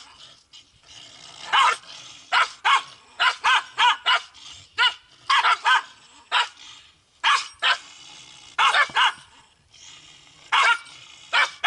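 Poongsan dog barking repeatedly in short bursts of one to three sharp barks with brief pauses between, in an aggressive territorial standoff with another dog over home turf.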